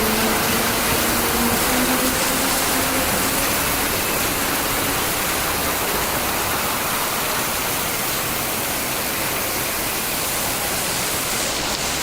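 Rainwater pouring down in a steady, unbroken rush. In the first few seconds a faint whine rises slowly in pitch and fades out under it.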